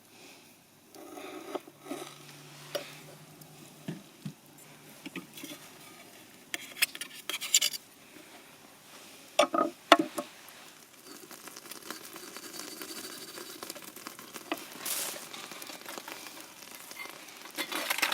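Food sizzling on a charcoal grill, with scattered clicks and light knocks of utensils and tableware and a brief low murmur or two.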